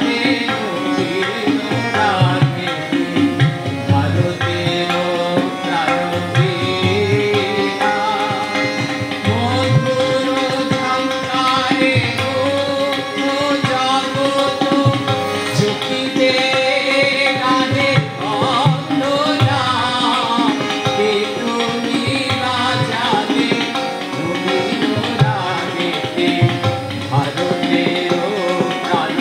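A man singing a devotional song, accompanying himself on a harmonium, with steady drum beats underneath.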